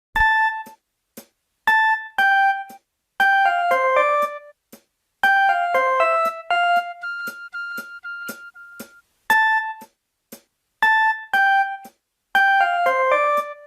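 Samsung phone ringtone: a bright melody of short, quickly fading notes, with two-note figures, quick falling runs and a long held note. The phrase starts over from the beginning about nine seconds in, looping as a ringtone does.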